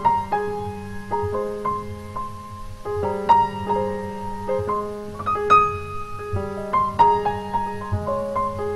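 Piano playing held low notes, with chords and single notes struck over them every second or two.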